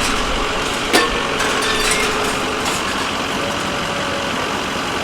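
A heavy engine idling steadily, with one sharp knock about a second in.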